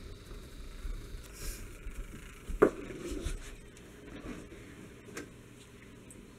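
A baby's hand patting the shallow water of a small inflatable kiddie pool: quiet light pats and rustling, with one sharper slap about two and a half seconds in.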